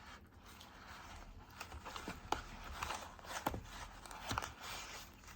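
Light handling noises as grinder parts and packaging are taken out by hand: soft rustling with a few scattered small clicks and taps.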